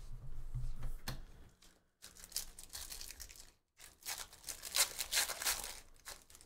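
A foil trading-card pack being torn open and crinkled by hand, in two bursts of crackling from about two seconds in. A few low knocks and thuds of handling come before it.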